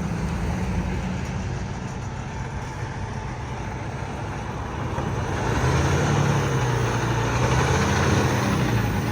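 Heavy truck engine running close by over road traffic noise, its low drone getting louder about five and a half seconds in. No horn sounds.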